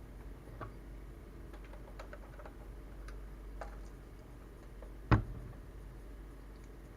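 Light clicks and taps of Lego plastic parts being handled, with one louder sharp snap about five seconds in as a gray brick is pressed into place on the Lego Saturn V model.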